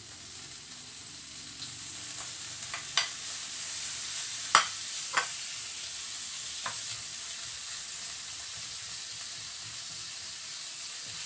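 Sliced bacon sizzling in hot melted butter in a frying pan, the sizzle building over the first couple of seconds as the bacon goes in and then holding steady. A few sharp knocks of a wooden spoon against the pan and plate come between about three and seven seconds in, the loudest near the middle.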